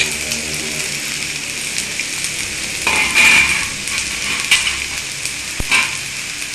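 Chopped elephant yam stems sizzling in hot coconut oil in a steel frying pan, a steady hiss, with a few knocks against the pan about three seconds in, around the middle and near the end.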